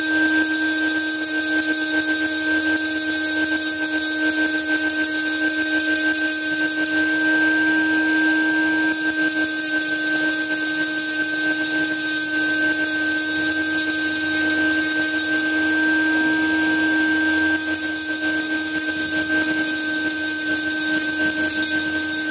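Small high-speed rotary handpiece running steadily with a burr, a constant whine, as the burr is worked over engraved steel to cut away the background between the scrollwork.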